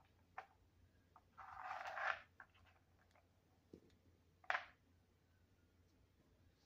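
Faint plastic scraping and clicking of a cat treat puzzle as cats paw at its sliding pieces: one short scrape about a second and a half in, then a single sharp click near the middle, with a few soft ticks around them.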